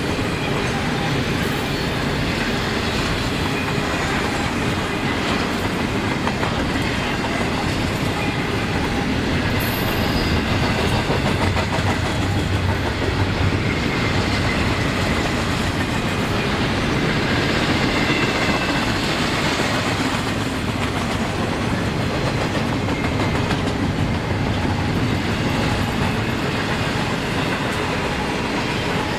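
Railroad cars rolling steadily past on the track, with continuous wheel-on-rail clatter.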